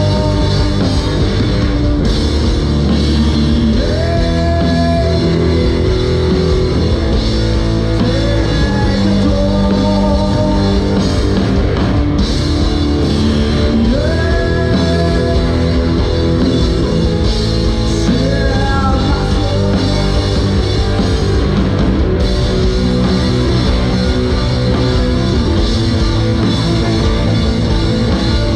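Rock band playing loud and steady, with electric guitar and drum kit; a pitched melody line slides and bends over the top.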